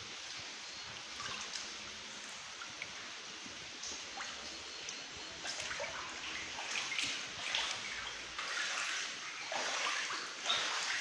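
Shallow floodwater sloshing and splashing underfoot in irregular surges as someone wades across a flooded floor, over a steady hiss. The surges begin a few seconds in and grow stronger towards the end.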